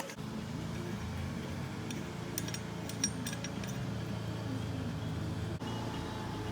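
Steady low hum of a vehicle running, heard from inside the cabin, with a few light clicks and clinks about two to three and a half seconds in.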